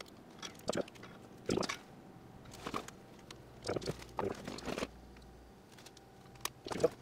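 Small hand tools scraping, crunching and clicking on a circuit board in irregular short bursts while glued-in MOVs (surge varistors) are swapped on the Dyson Airblade's motor inverter board. There is a sharp click about six and a half seconds in, and the loudest scrape comes just after it.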